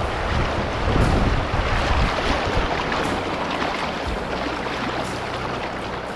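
River water rushing around a kayak, with wind buffeting the microphone.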